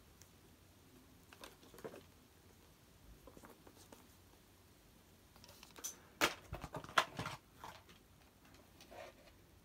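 Hands handling a plastic VHS cassette case: scattered light rustles and clicks, then a cluster of louder sharp clicks and knocks about six to seven and a half seconds in.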